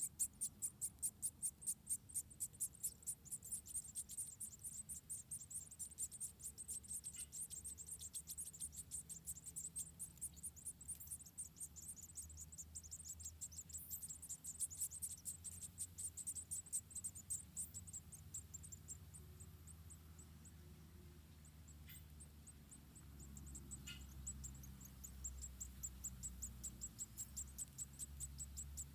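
High-pitched insect chirping, cricket-like, in an even run of several quick pulses a second with no break.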